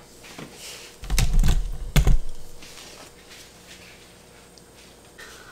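Slow cooker set down on a tabletop with a dull, heavy thud about a second in, followed by a sharp knock about a second later as another item is put down.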